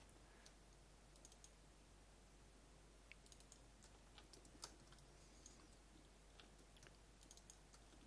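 Near silence with faint, scattered clicks of a computer mouse, the user clicking to select edges in a 3D modelling program.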